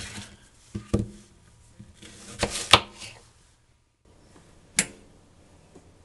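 Kitchen knife quartering apples on a plastic cutting board: a few sharp knocks of the blade striking the board, with brief rustling as the fruit is handled. The sound breaks off about four seconds in, and one more sharp knock follows.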